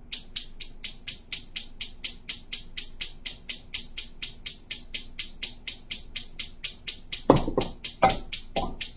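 Gas range's electric spark igniter clicking in a rapid, even run of about four to five clicks a second as the burner is relit under the skillet.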